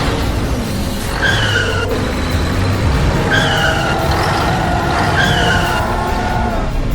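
Vehicle sound effects: engines running under three short, slightly falling squeals like tyres skidding, about a second, three seconds and five seconds in.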